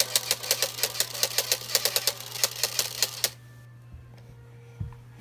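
A plastic toy car rattling and clicking rapidly, about six sharp clicks a second, as it is handled, stopping abruptly about three seconds in. A steady low hum runs underneath.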